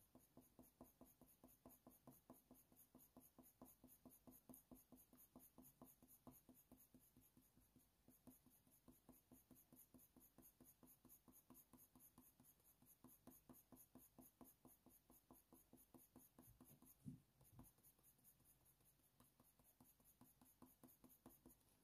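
Very faint, quick strokes of a Faber-Castell Polychromos colour pencil scratching on hot-press watercolour paper: many small repeated ticks as the lead is worked back and forth. A soft bump about seventeen seconds in.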